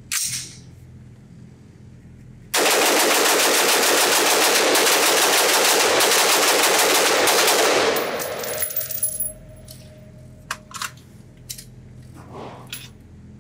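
Noveske Infidel Gen 4 AR-15 with a blast deflector fired semi-automatically as fast as possible through a full magazine: a rapid, unbroken string of shots starting about two and a half seconds in and lasting about five seconds, echoing in an indoor range. A few light clicks follow the string.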